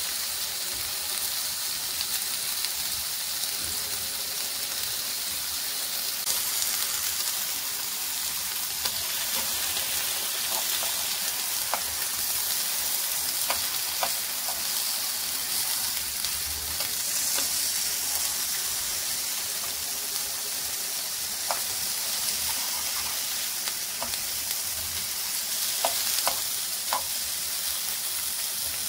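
Tomato slices, onion rings and green chillies sizzling in oil in a frying pan: a steady hiss with scattered short clicks, from metal tongs turning the slices against the pan, through the second half.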